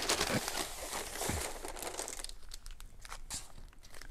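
Brown kraft paper rustling and crinkling as it is rolled around a hide of leather. After about two seconds the rustle thins out to a few light handling clicks.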